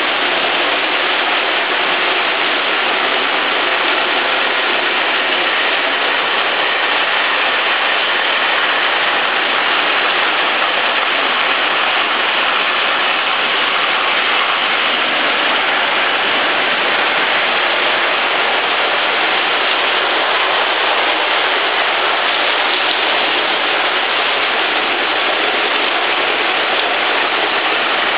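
Lionel O-gauge model trains running on three-rail track: a steady rattle of metal wheels rolling over the rails, mixed with the motor and gear noise of the powered diesel units.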